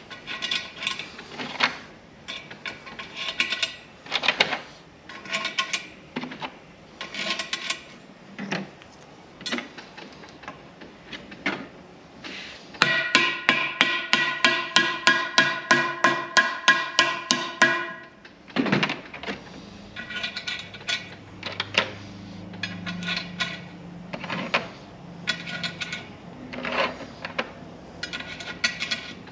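A mallet tapping plastic end caps onto the ends of aluminium extrusion load bars, with scattered knocks and clatter from handling the bars. About 13 seconds in comes a quick run of taps, three or four a second for several seconds, each one setting the bar ringing.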